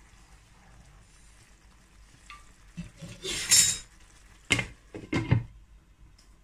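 A wooden spatula gives a brief loud scraping stir through sizzling masala in a non-stick frying pan. Then a glass pan lid with a steel rim clinks down onto the pan in a few sharp knocks.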